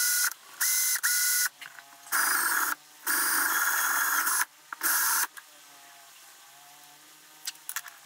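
Small electric power tool run in six short trigger bursts over about five seconds, each a steady motor whine with a scraping hiss, cleaning thread-locker off wheel bolts. After that come a few light clicks of handling.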